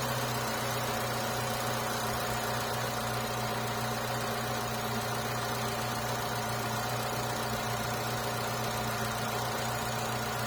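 2014 Holden Cruze engine idling steadily, just after a new thermostat has been fitted and the coolant refilled.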